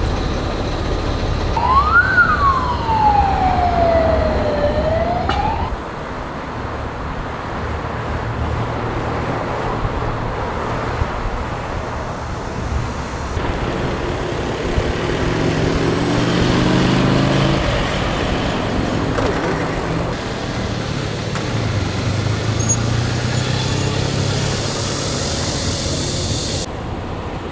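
Street traffic with an emergency vehicle's electronic siren giving one wail about two seconds in: a quick rise, a slow fall, then rising again before it cuts off abruptly. Traffic continues after it, and a vehicle engine revs up in the middle.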